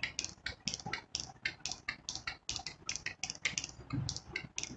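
Whiteboard duster rubbed across a whiteboard in quick back-and-forth strokes, about four or five a second, an even scratchy swishing as the marker writing is wiped off.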